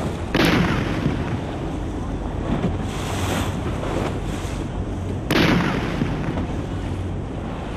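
Two sharp cannon shots about five seconds apart, each with a short decaying tail, from a cannon on a barge. Steady wind buffeting the microphone and lapping water run underneath.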